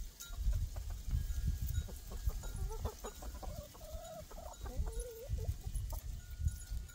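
Backyard hens clucking, with two drawn-out calls about four and five seconds in. A low rumble on the microphone runs beneath and is the loudest sound.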